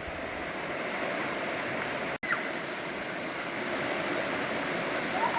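Mountain valley stream rushing steadily over rocks, with a momentary break in the sound about two seconds in.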